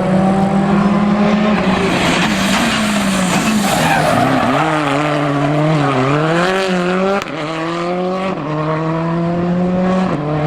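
Rally car braking into a corner, engine pitch falling with tyre skid noise, throttle blipped and wavering through the bend, then accelerating away with three upshifts.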